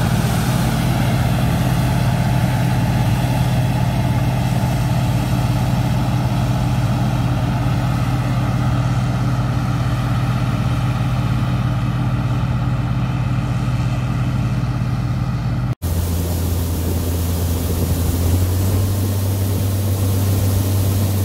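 Massey rotary combine running steadily as it harvests corn, a constant engine drone with a noisy mechanical hiss over it. About sixteen seconds in it cuts to a closer, lower, steady drone of the combine's engine and unloading auger as shelled corn pours into a truck.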